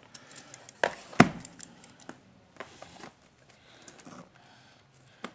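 Scissors and a cardboard trading-card box being handled while picking at a hard-to-open sticker seal: scattered clicks, light scraping and small knocks, the loudest a sharp knock about a second in.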